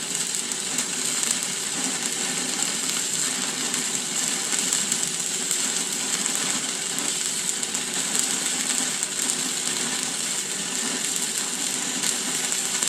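Stick (arc) welding with a 6013 electrode laying a root pass: the arc gives a steady crackling sizzle, dense with fine rapid pops.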